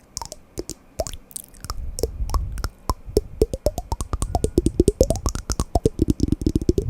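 Wooden blocks knocked and tapped in quick, irregular clicks, with short pitched knocks that vary in pitch from one strike to the next. The tapping grows denser about halfway through and ends in a rapid run.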